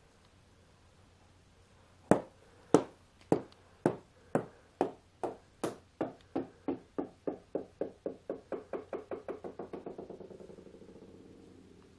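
A rubber bouncy ball bouncing on the floor: a loud first bounce about two seconds in, then bounces coming ever quicker and quieter until they run together into a fast rattle and die away as the ball settles.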